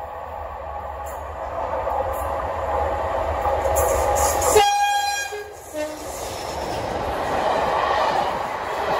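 Class 37 diesel locomotive running under power and growing louder, its English Electric V12 engine sound dominant. About halfway through comes a short two-tone horn blast, a higher note then a lower one, after which the engine sound builds again.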